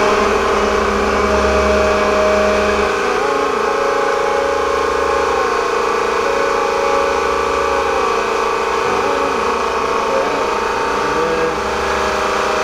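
Steady mechanical drone of a running motor, with fainter wavering sounds over it.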